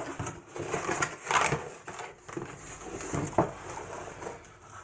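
Cardboard shipping box being opened and handled: flaps bending, scraping and rustling, with a sharp knock about three and a half seconds in.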